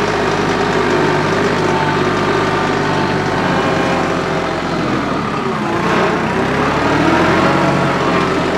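Compact tractor's diesel engine running steadily; its pitch dips briefly and recovers about six seconds in.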